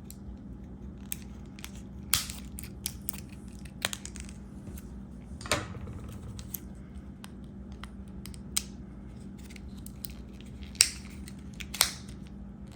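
Plastic blister packaging of a Duracell CR1632 coin battery being worked open: irregular crackles and sharp snaps of stiff plastic, a few of them louder, the loudest near the end.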